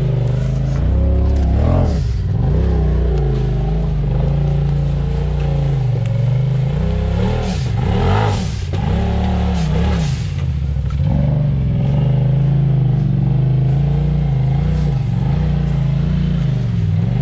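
Side-by-side UTV engine running at low crawling speed, its revs repeatedly dropping and picking back up as it is throttled over rocks. A few sharper knocks or scrapes come about halfway through.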